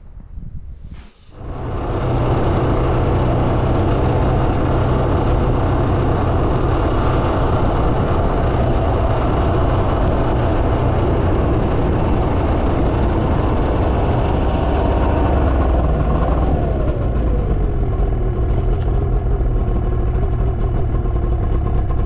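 Snowmobile engine running steadily at speed, coming in suddenly about a second and a half in. Its pitch drops toward the end as it slows down.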